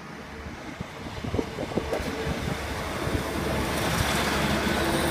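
Class 156 Sprinter diesel multiple unit approaching, its diesel engine hum and wheel-on-rail noise growing steadily louder as it draws near. A run of sharp knocks comes about a second in.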